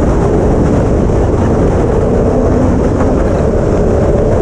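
Yamaha FZ-09 three-cylinder motorcycle cruising with the engine running steadily, heard from on board the bike over a dense rumble of wind and road noise.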